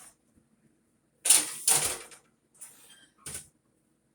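Kitchen items being handled: a loud clatter lasting about a second, then a softer rattle and a short knock.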